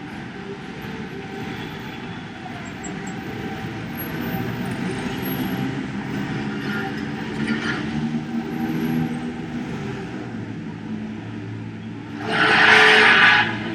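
City street traffic: vehicle engines running and passing, with a loud burst of hiss lasting about a second near the end.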